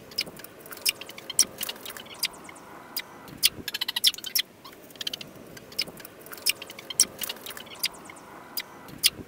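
Booted bantam hen sneezing: many short, sharp clicking sneezes, some single and some in quick runs of several, after a spell of cold weather.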